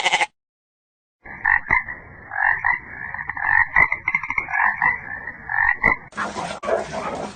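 Frogs croaking: a run of short, repeated calls that starts about a second in and cuts off near the end, where a different, noisier sound takes over.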